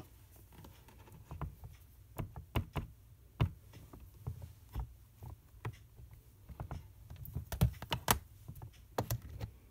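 Scattered light clicks and taps with a few sharper knocks, irregularly spaced, from a Stamparatus stamp-positioning tool being handled while stamping.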